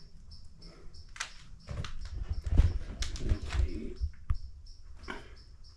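Footsteps and handling knocks on the cabin's old wooden boards, loudest about halfway through, with an insect chirping in a steady high pulse about three times a second.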